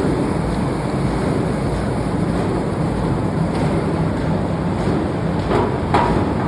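Forging-plant machinery running: a steady, loud rumble and hiss, with two short knocks near the end.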